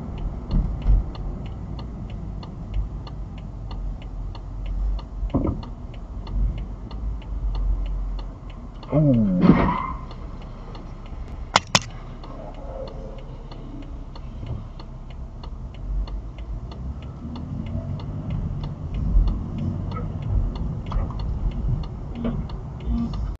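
Car cabin noise recorded by a dashcam while driving: low road and engine rumble under a steady ticking about three times a second. About nine seconds in comes a brief wavering squeal, and near twelve seconds two sharp knocks close together.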